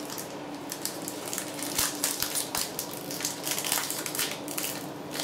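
Foil wrapper of a Pokémon TCG Sun & Moon Burning Shadows booster pack crinkling and crackling in the hands as it is opened, in a dense irregular stream of crackles.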